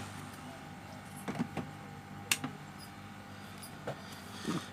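A few light clicks and taps of small tools and parts being handled on a repair bench, with one sharper click about two seconds in, over a faint steady hum.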